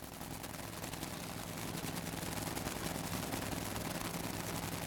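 Two supercharged nitromethane Funny Car engines idling at the starting line, a fast popping crackle over a low rumble that grows gradually louder.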